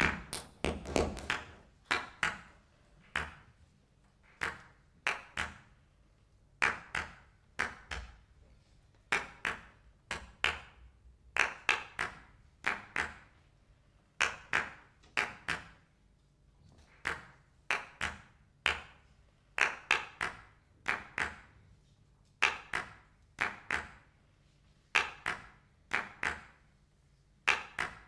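Sharp percussive knocks, often in pairs or threes, about one group a second, each ringing briefly, with near quiet between.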